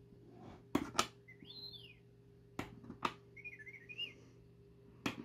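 Electronic whistles and warbling chirps from the Star Wars Black Series Wedge Antilles helmet's built-in sound effects: one sweeping whistle, then a quick run of warbling chirps. Five sharp clicks come in among them.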